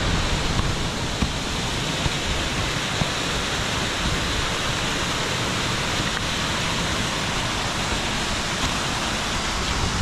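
Steady rush of water falling over a partly frozen waterfall, an even hiss with some low rumble throughout.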